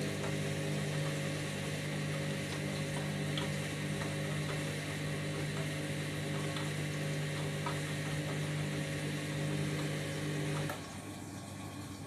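Candy washing machine's drain pump running with a steady hum over the sound of water, draining the wash water before the spin. The hum cuts off suddenly near the end, leaving a quieter water sound.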